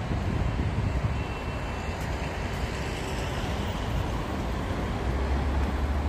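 Steady highway traffic noise: a continuous low rumble with an even hiss.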